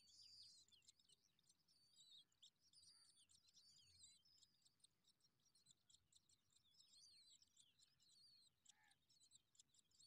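Faint skylark chirping and twittering: quick, wavering, high-pitched notes that run on without a break.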